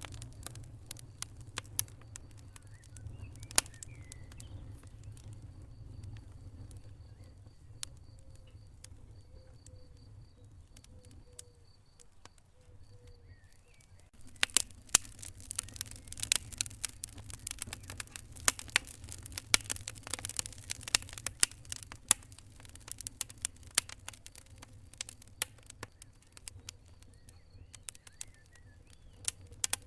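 Wood fire burning in a fireplace: irregular sharp crackles and pops over a low steady rumble. About halfway through, the pops come thick and fast for several seconds, then thin out again.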